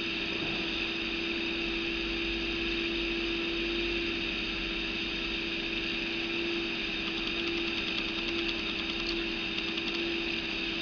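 Steady background hum with hiss: one constant low tone over an even hiss, holding level throughout, with no distinct clicks or handling sounds standing out.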